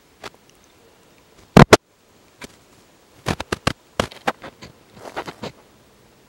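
Footsteps crunching over dry twigs and pine needles, in uneven clusters of sharp crackling clicks. A loud double knock about one and a half seconds in is the loudest sound.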